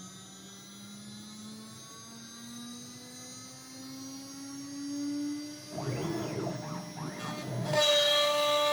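CNC router spindle with a quarter-inch ball end mill cutting cherry: a steady whine rising slowly in pitch, rough cutting noise about six seconds in, then a loud steady ringing tone from about eight seconds in. That tone is the tool chattering, which the uploader puts down to too high a feed rate.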